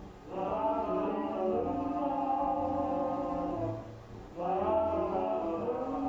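Song recording with long held sung notes: one long note, a brief break about four seconds in, then another long note.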